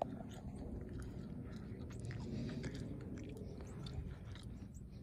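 A horse munching dry hay: a steady run of soft crunches and rustles.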